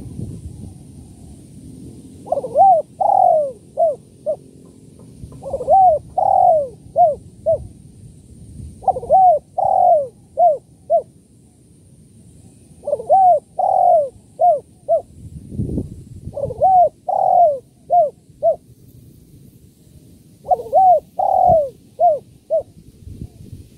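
Spotted dove cooing. It gives six repeated phrases, one about every three to four seconds. Each phrase is two arched coos followed by two or three short clipped notes.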